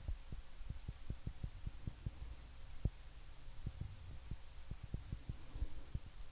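Black pencil crayon sketching on paper: quick, irregular dull taps of the strokes, about three or four a second, over a steady low hum. The footage, and so the strokes, runs at double speed.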